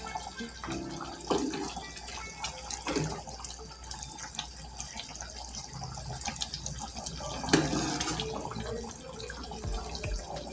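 Curry simmering in an open pan on the gas stove, a steady bubbling with many small pops. A louder stretch of noise comes about seven and a half seconds in.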